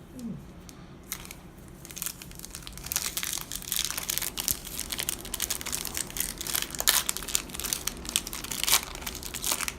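Foil booster-pack wrapper being torn open and crinkled by hand: a dense run of sharp crackles that starts about a second in and keeps going.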